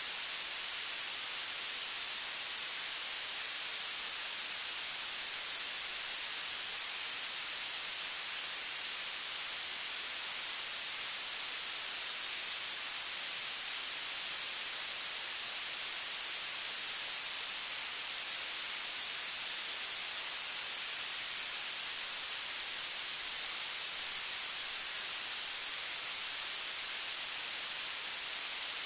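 Steady static hiss, even and unbroken, heavier in the high end, with no other sound standing out.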